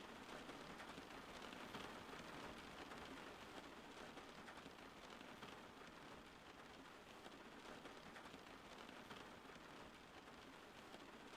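Faint, steady rainfall: an even hiss of rain peppered with small drop ticks.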